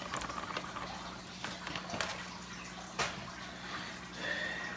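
Water dripping and trickling from a fish net into a bucket after a fish has been poured out of its shipping bag, with a few sharp drip ticks. A steady low hum runs underneath.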